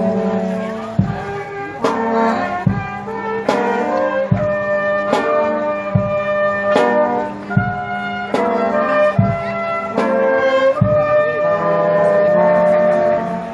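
Marching band playing: brass holding and changing chords over a steady beat of bass drum and cymbal strokes, a little more than one a second.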